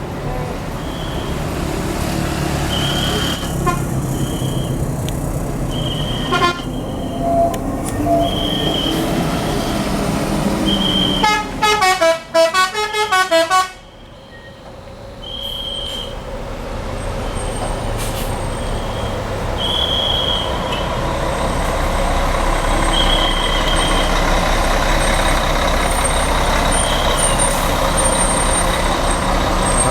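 Tour bus 'telolet' musical horn, a quick run of rapidly alternating tones lasting about two and a half seconds, heard over passing bus engines. Afterwards the engine noise of another bus grows steadily louder as it approaches.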